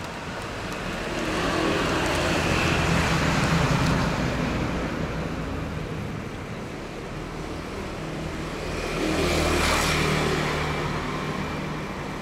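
Street traffic: two motor vehicles drive past one after the other, each swelling up and fading away with an engine hum. The first passes about two to four seconds in, the second near the end, over a steady background of road noise.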